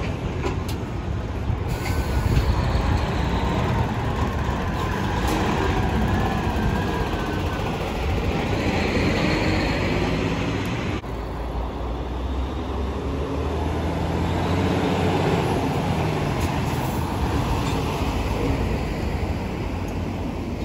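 Heavy diesel semi-trailer trucks driving past close by, one after another: engine rumble and tyre noise. A faint whine wavers about five to seven seconds in, and the sound changes abruptly about eleven seconds in as the next truck comes.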